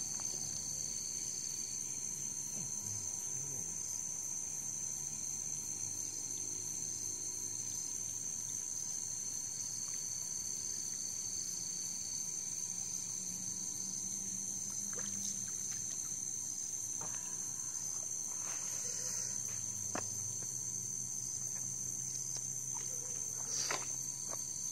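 Steady, high-pitched night chorus of crickets and other insects, with a few faint clicks in the second half.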